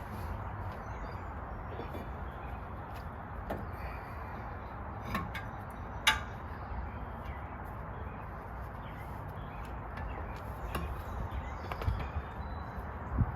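Brake rotor and caliper being worked back onto a truck's front wheel hub: a few sharp knocks and clicks, the loudest about six seconds in, over a steady low rumble.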